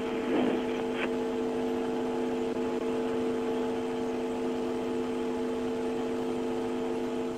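Steady electrical hum of several fixed tones over a hiss on the broadcast audio line, with a brief crackle in the first second; it cuts off suddenly near the end.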